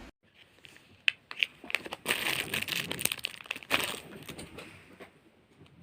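Plastic packaging crinkling as it is handled, with a few sharp clicks about a second in and the loudest crinkling in the middle.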